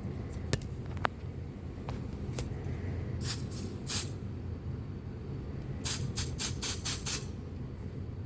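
Aerosol can of smoke-detector test smoke sprayed in short hissing bursts: two around the middle, then a quick run of about six near the end. A few light clicks come before the spraying.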